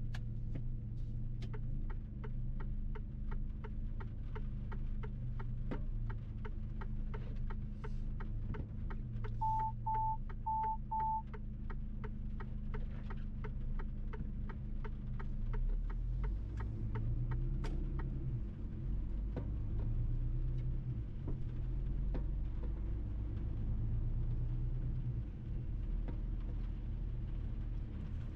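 Mercedes-Benz truck driving, with a steady low engine and road rumble. A rapid, evenly spaced ticking runs through the first two-thirds and stops near 18 s. Four short, same-pitched beeps sound about ten seconds in.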